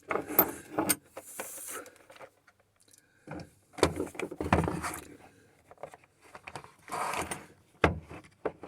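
Hands handling small parts and tools at a workbench: a series of clicks, knocks, rattles and rustling in three clusters, with a short hiss-like rustle about a second and a half in.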